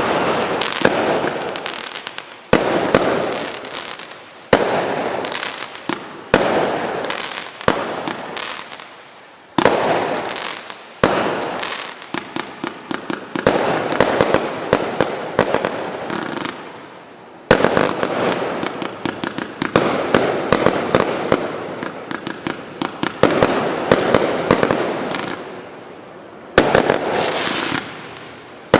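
Consumer fireworks cake of 0.8-inch calibre firing its salvos. Sharp bursts come every second or two, each trailing off into crackle, with stretches of rapid popping in between.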